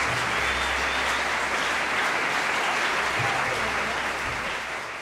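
Concert audience applauding steadily, the clapping beginning to fade out near the end.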